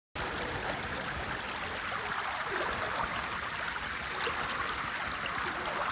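Creek water running steadily, an even rushing with no change in level.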